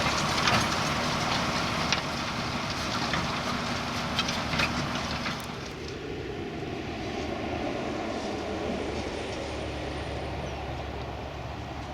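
Tractor engine running steadily while pulling a plough, with sharp metallic rattles over the drone. About halfway through the sound drops and turns duller.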